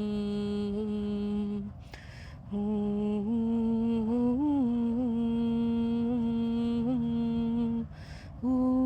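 A woman's voice humming long, steady held notes in a low register, the pitch stepping up slightly and wavering once in the middle. Two quick in-breaths break the tone, one about two seconds in and one near the end.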